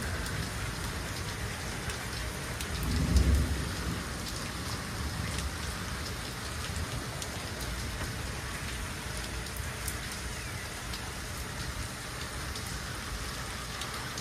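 Steady rain falling, with scattered sharp drip clicks and a low rumble of thunder that swells briefly about three seconds in.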